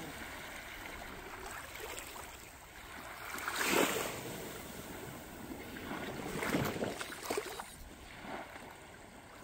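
Small waves washing on the beach and wind on the microphone, a steady hiss that surges louder about four seconds in and twice more a few seconds later.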